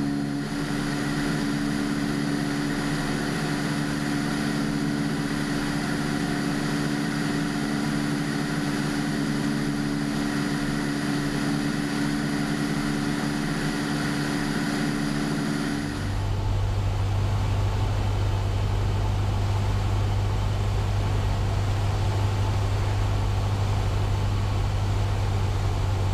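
Cessna 172's engine and propeller drone in cruise flight, a steady hum. About 16 seconds in the sound changes abruptly to a deeper, duller steady drone.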